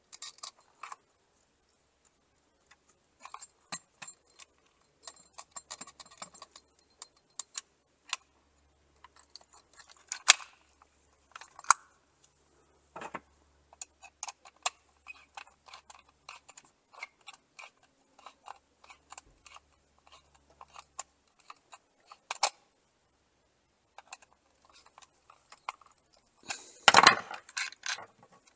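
Scattered small clicks, ticks and scrapes of hand work on an electrical receptacle: the white wire being bent and screwed down under a terminal screw with a screwdriver. A louder rustling clatter lasts about a second near the end.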